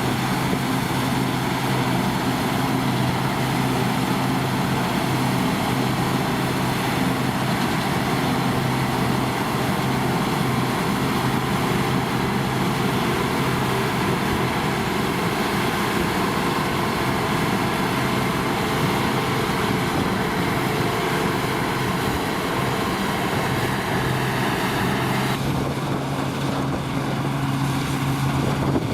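New Holland TX-series combine harvester running at work: a steady engine hum under a broad, even rushing noise. About 25 seconds in, the higher part of the noise drops away.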